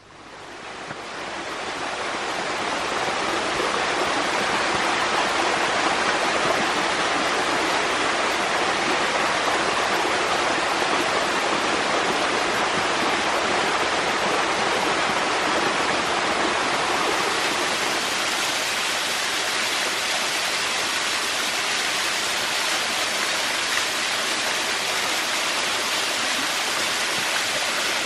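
Stream cascading over a rocky bed and a small waterfall: steady rushing water that swells up over the first few seconds and then holds.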